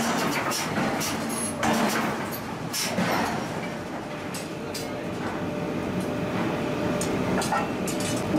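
Steady forge-shop machinery din with a faint hum and irregular sharp metallic clinks and knocks, during hot forging of a red-hot steel ring.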